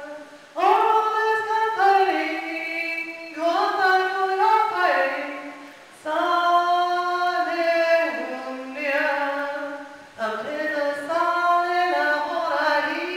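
A woman singing an icaro, an Amazonian shamanic healing chant, unaccompanied and amplified through a microphone. Four long phrases of held and gliding notes, with short breaths between them.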